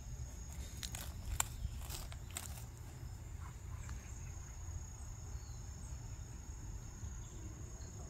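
Steady high-pitched insect buzzing in the outdoor background, with a few faint clicks in the first few seconds.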